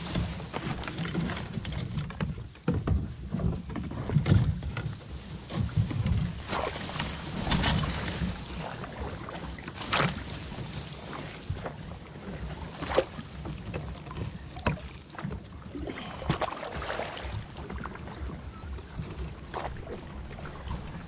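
Sit-on-top fishing kayak being paddled through dense tall grass: paddle strokes and splashes, grass brushing along the hull, and irregular knocks on the hull, over a steady low rumble.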